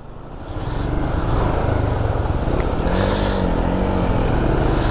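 Motorcycle engine running under load through a fast-flowing river crossing, rising over the first second or so and then holding steady, with the rush of water.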